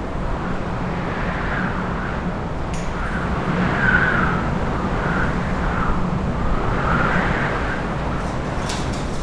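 Heavy wind storm through a city: a steady low rumble under gusts that swell and fade every second or two, the strongest about four seconds in.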